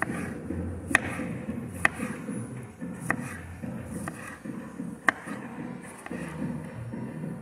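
Kitchen knife slicing tomatoes on a wooden cutting board, the blade knocking sharply on the board about five times at uneven intervals.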